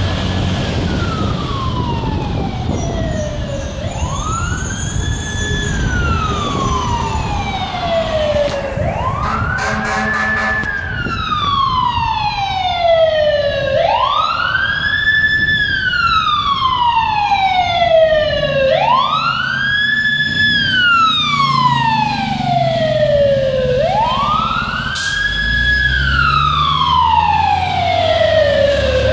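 Fire engine siren sounding a steady wail, each cycle about five seconds: a quick rise, a short hold at the top, then a slow fall. A horn sounds for about two seconds near the ten-second mark, over traffic rumble.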